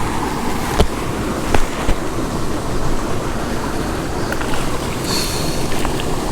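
Steady rush of water pouring out of a discharge pipe into a gravel pit. A few short knocks come in the first two seconds.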